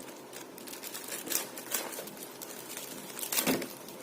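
Plastic courier packet being torn open by hand: scattered crinkling rustles, with the loudest rip about three and a half seconds in.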